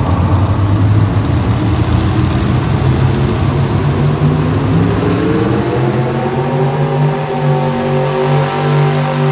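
Pulling truck's engine running loud, revving up steadily from about four seconds in and holding at high revs near the end.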